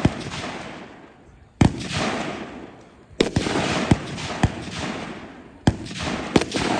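Gunshots from rifles or pistols firing at a competition firing line: about eight single shots at irregular intervals, each followed by a long rolling echo.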